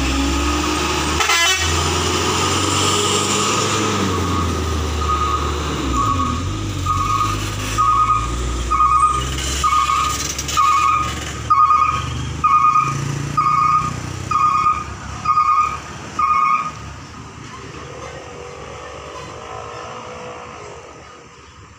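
A light cargo truck's diesel engine running under load as it climbs past. About five seconds in, a loud two-tone electronic beep starts, repeating evenly a little faster than once a second. It sounds about fourteen times over some ten seconds, then stops, leaving quieter traffic noise.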